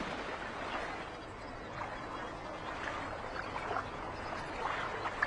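Faint water ambience: gentle lapping and trickling with a few small drips or splashes scattered through it.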